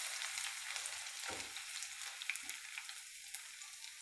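Julienned ginger and cumin seeds sizzling in hot oil in a kadai, a steady crackling hiss that slowly fades, with a wooden spatula stirring through them.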